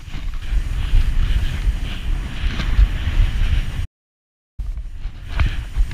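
Skis sliding fast through snow on a steep descent, with wind buffeting the microphone. The sound cuts out to silence about four seconds in, then quieter ski scraping and a few clicks follow as skis slide along a flat track.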